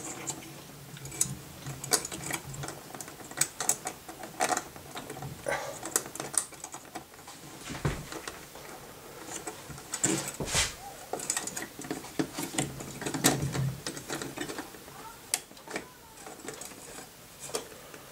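Irregular small clicks, taps and scrapes of a metal tower CPU heatsink and its mounting hardware being handled and seated onto the bracket while the screws are lined up, with two duller knocks near the middle.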